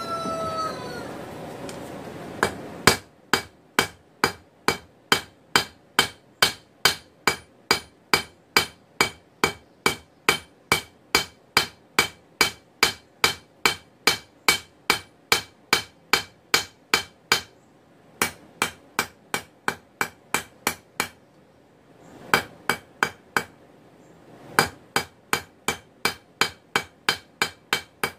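Hand hammer striking red-hot 5/16-inch round steel bar on an anvil: a steady run of ringing blows, about three a second, broken by a few short pauses about two-thirds of the way through.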